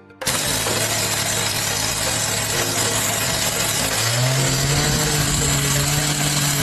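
A motor-driven machine running loudly, a harsh noisy whir over a steady low hum that rises a little in pitch about four seconds in, as if speeding up or taking load.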